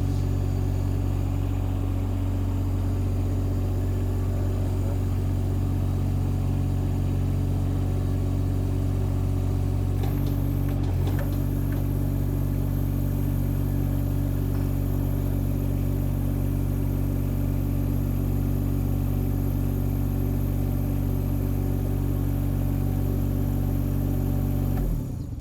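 SD12 compact track excavator's engine running steadily, with a slight change in its tone about ten seconds in. It stops abruptly just before the end.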